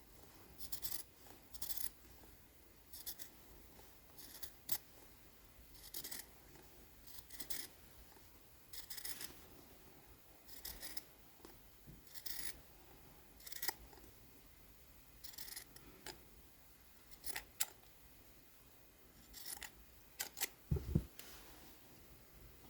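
Scissors snipping through sweatshirt fabric in short, separate cuts, roughly one every second or so, as a shape is trimmed little by little. A soft low bump comes near the end.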